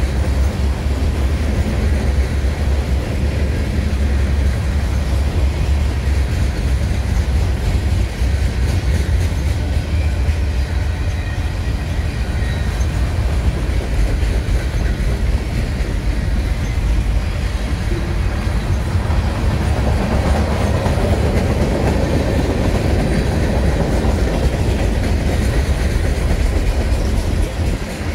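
Cars of a Union Pacific manifest freight train rolling past, their steel wheels running steadily on the rails.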